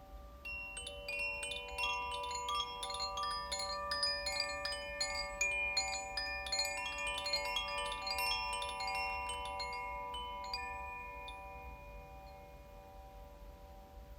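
Tuned hand-held wind chimes, rocked so that the clapper strikes the rods many times in a dense, tinkling cluster of bell-like tones for about ten seconds. The strikes then stop and the overlapping tones ring on and slowly fade.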